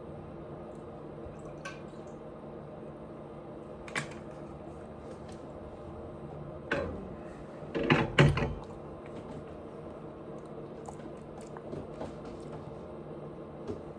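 Close-miked wet chewing and mouth smacks while eating dumplings: scattered short, squishy clicks. A louder cluster comes about eight seconds in, with smaller ones near four and seven seconds, over a steady low hum.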